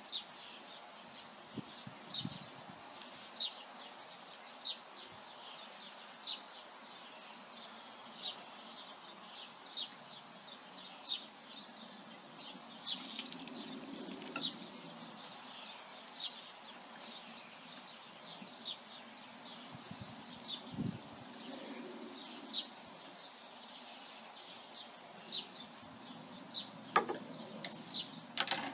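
A small bird chirping over and over, short high chirps about once a second, over a faint background hiss. A couple of sharper knocks come near the end.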